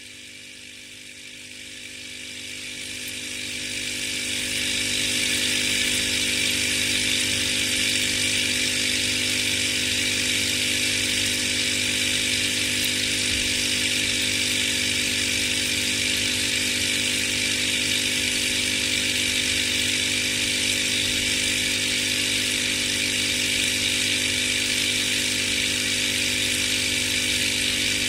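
Steady electric buzzing hum with a hiss, as of a small aquarium pump running. It rises in level over the first five seconds and then holds even.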